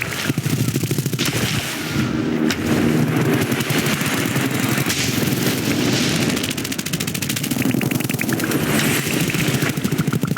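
Animated-film sound effects: a dense, rapid rattling of many pulses a second that goes on throughout, with sharper cracks over it.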